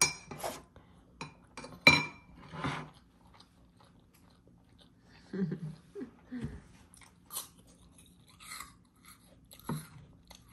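Metal fork clinking and scraping on a ceramic plate as the last of the rice is scraped up, with a few sharp ringing clinks in the first three seconds, then chewing and lighter clicks of the fork.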